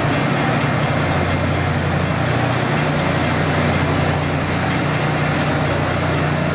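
Loram rail grinder train rolling past, its engines running with a steady low hum under a steady rushing noise.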